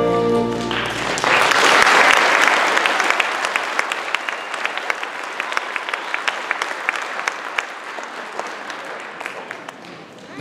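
Audience applause after a children's choir song. The last held chord ends under a second in, then the clapping swells and slowly dies down to scattered claps.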